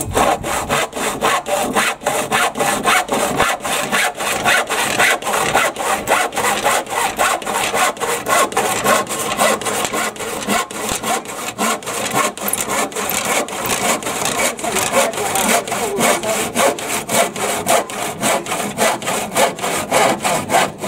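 Handsaw cutting through a timber decking board in quick, even back-and-forth strokes.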